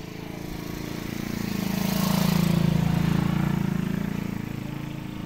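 A motor vehicle's engine passing by: it grows louder over about two seconds, is loudest near the middle, then fades away.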